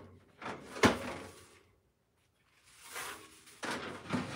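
Kitchen handling noises: one sharp knock about a second in, then a brief rustling, scraping noise near three seconds and a few more small knocks near the end.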